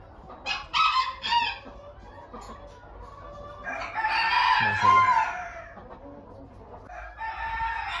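A rooster crows once, a long call about four seconds in, after three short clucking calls near the start.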